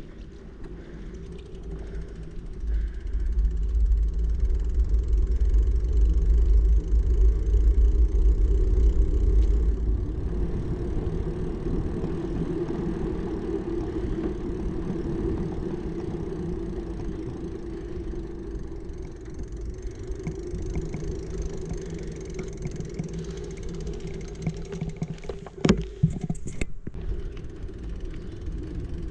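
Steady rumble of travel along a road, with heavy wind buffeting on the microphone for several seconds early in the stretch. A couple of sharp knocks come near the end.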